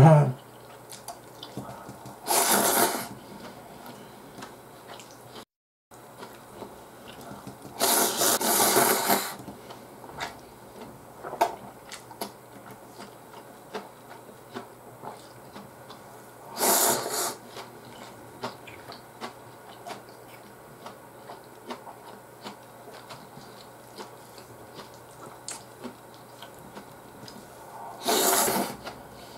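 A man slurping ramen noodles four times, each slurp lasting about a second, with soft chewing and mouth clicks in between.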